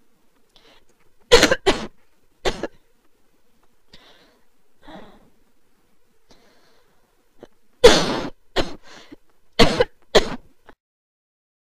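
A person coughing hard in repeated fits of sudden, harsh coughs, some in quick pairs and runs: a violent coughing fit from the flu.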